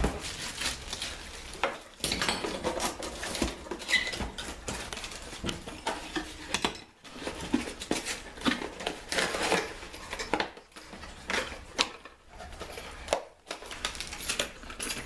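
Metal door-knob and latch parts clinking and rattling as they are handled, with irregular clicks, knocks and rustling.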